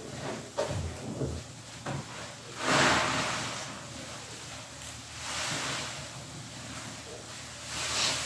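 A sponge soaked in soapy water and thick suds is squeezed and wrung by hand, giving wet squelching and fizzing foam. The loudest squeeze comes about three seconds in and another comes near the end.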